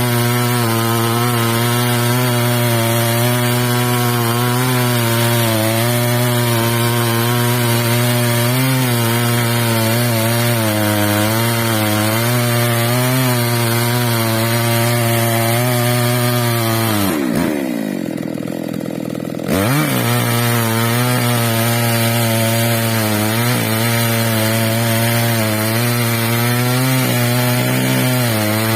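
Two-stroke chainsaw running at high revs under load, ripping a log lengthwise in a chainsaw mill; its note wavers slightly as it cuts. About two-thirds of the way through, the revs fall away for about two seconds, then the saw is throttled back up and carries on cutting.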